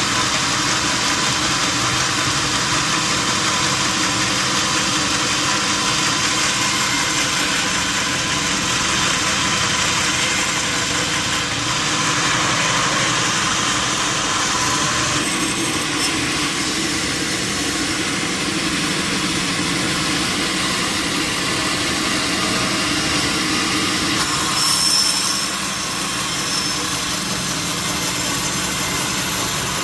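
Sawmill machinery running steadily with a motor-like drone and a broad hiss, the sound shifting slightly partway through. About 25 seconds in there is a brief louder burst with a high whine.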